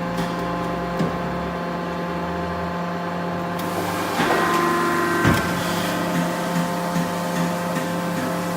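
Simeron 100-tonne CNC press brake running: a steady machine hum with a lower rumble that drops away partway through, then a rise in hiss and a sharp knock about five seconds in, followed by light regular ticks.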